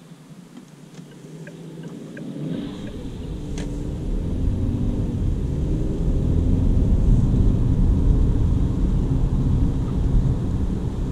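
Inside the cabin of a DongFeng Forthing T5 EVO with its 1.5-litre turbo engine, accelerating from a crawl to about 60 km/h on a wet road. Engine drone and tyre and road rumble start quiet, swell from about two seconds in, and level off past halfway.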